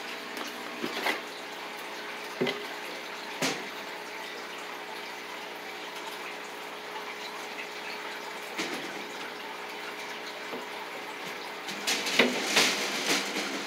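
Steady running, trickling water with a faint even hum under it, broken by a few short knocks and clicks, the loudest cluster near the end.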